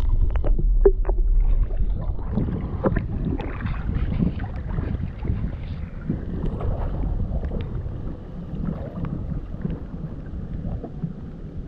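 Shallow water sloshing around a wader and a flounder gig, with wind buffeting the microphone and a few sharp clicks near the start.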